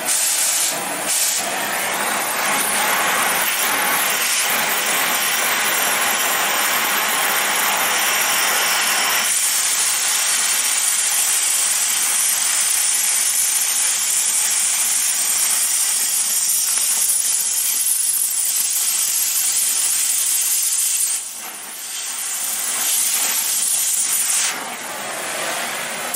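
Oxy-fuel cutting torch hissing steadily as its flame heats and cuts a worn roller bearing off a compressor crankshaft. The hiss changes slightly about a third of the way in, dips briefly later on, and eases near the end.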